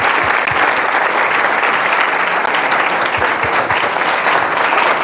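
Audience applauding with steady clapping.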